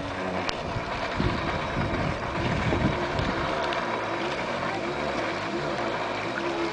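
Kawasaki JS300 stand-up jet ski's two-stroke twin running at a distance, its revs rising and falling as it carves turns on the water. Wind buffets the microphone about one to three seconds in.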